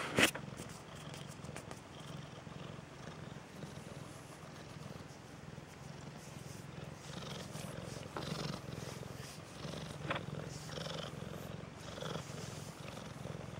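Hairless cat purring steadily as it is stroked, with a few soft rustles and taps.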